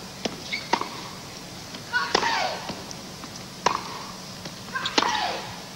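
Tennis rally: sharp racket-on-ball strikes and bounces about once a second, several of the strikes followed by a player's short grunt that falls in pitch.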